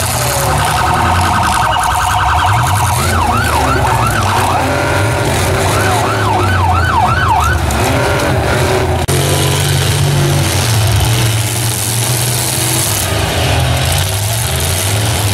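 An electronic alarm cycling through its tones: a fast warble for about three seconds, then two runs of quick rising-and-falling whoops, stopping about eight seconds in. Under it runs the steady low sound of the demolition-derby trucks' and vans' engines.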